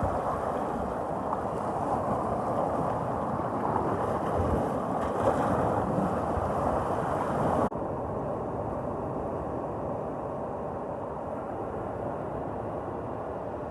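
Sea waves breaking and washing up on a beach: a continuous rush of surf. About halfway through, the sound changes abruptly to a duller, slightly quieter surf.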